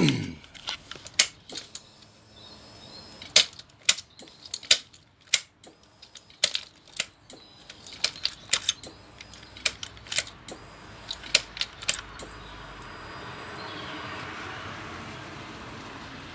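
Ignition key switch of a 2005 Honda CBR1000RR Fireblade being turned on and off repeatedly to reset a gear indicator: a string of sharp, irregular clicks. Near the end the clicking stops and a faint steady hum comes up.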